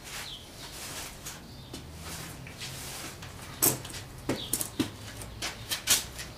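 Hand-tool work on a motorcycle: a rustle of handling, then a handful of sharp, separate clicks and snaps in the second half, the loudest near the end.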